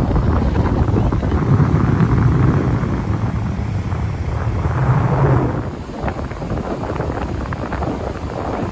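Wind buffeting the microphone as a low rumble over the wash of small waves breaking on the shore. The wind eases a little over halfway through.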